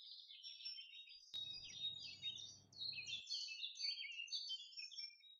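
Many small birds chirping and twittering at once, a dense run of short overlapping chirps and trills.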